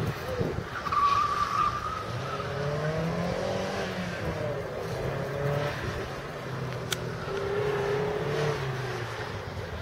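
Small convertible roadster's engine revving up and down as it is driven hard through an autocross cone course, with tyres squealing in the turns: a sharp squeal about a second in, then wavering squeals in the middle and again near the end.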